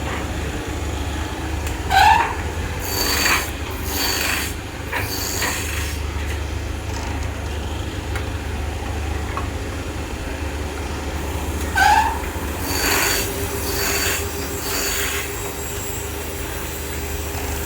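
Woodworking machine running with a steady low hum while wood is worked against it in two bouts about ten seconds apart. Each bout opens with a short rising squeal, then three or four rasping strokes.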